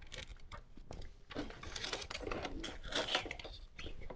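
Handling noise: rustling and a scatter of light clicks and taps as wiring is pushed and tucked into place under the Jeep's interior plastic trim and carpeting.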